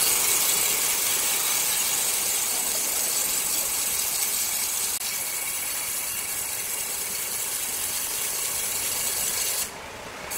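Circular saw blade cutting through wood, a steady hissing rasp. The high hiss drops away sharply just before the end, as the blade comes out of the cut.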